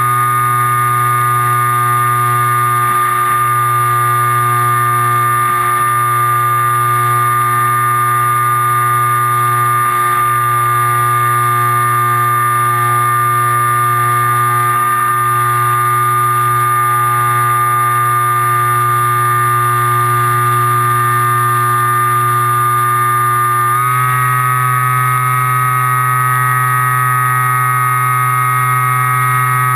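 Electric motor of an FPV model plane running at a steady throttle: a constant droning hum with a high whine that holds one pitch, stepping slightly higher about 24 seconds in.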